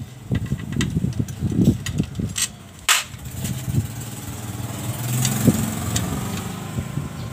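An engine running, steadier and louder from about four and a half seconds in, with scattered clicks and knocks of a hand tool on the scooter's CVT cover bolts and one sharp metallic clack about three seconds in.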